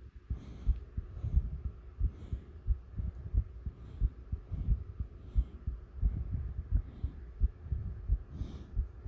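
Human heartbeat: a steady run of low, dull thumps at about one and a half beats a second, starting just after the beginning.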